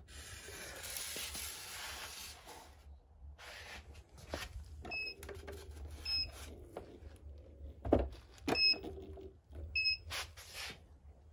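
Hoverboard giving short electronic beeps, four single beeps at irregular intervals from about five seconds in. Between them come the rubbing and knocking of hands handling the board's plastic body and footpads, with a thump about eight seconds in.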